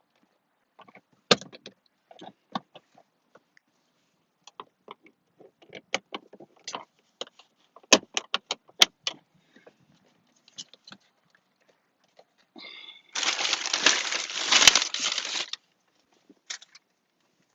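Hands working the plastic steering-column cover: scattered light clicks and taps of plastic, then about two seconds of louder, dense rattling and scraping near the end as the cover is worked apart.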